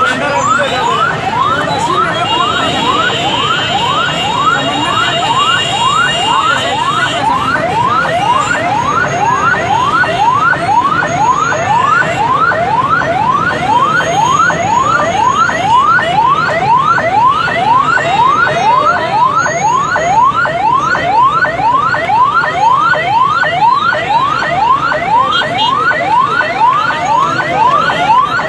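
Electronic vehicle siren in a fast yelp: a rising wail repeating about twice a second without a break, over the noise of a large crowd.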